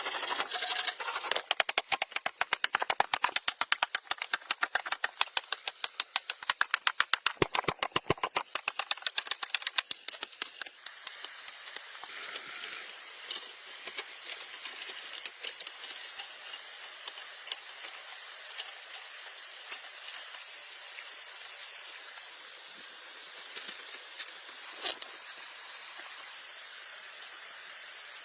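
A fast run of sharp knocks, several a second, for about the first ten seconds. Then a steady rush of a nearby waterfall, with a few scattered clicks.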